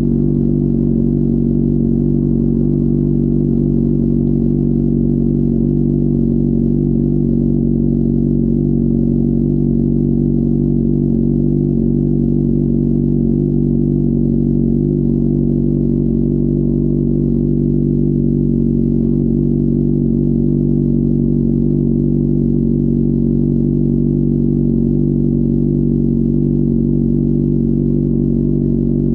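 Honda CBR600RR's inline-four engine idling at a steady, unchanging pitch, with no revving.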